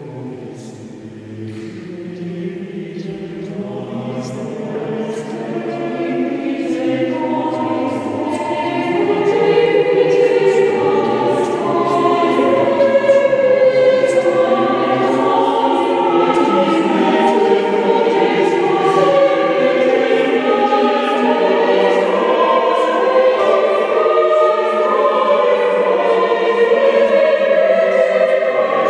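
Mixed chamber choir singing in parts. Low voices carry the start, then higher voices join and the sound swells over the first ten seconds or so before holding at full strength.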